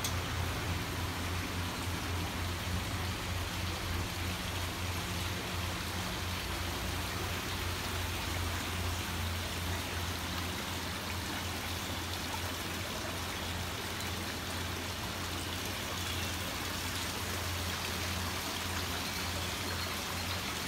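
Steady rushing hiss, like running water or air, over a low steady hum.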